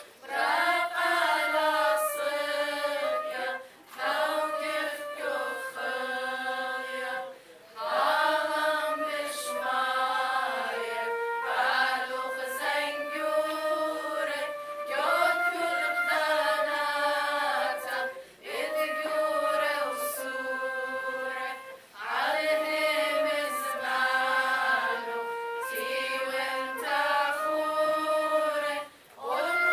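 Women's church choir singing a hymn, with a flute playing along. The hymn goes in phrases of a few seconds, with short breaks for breath between them.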